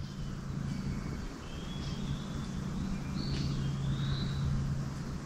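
Birds singing several short, sliding whistled phrases over a steady low hum.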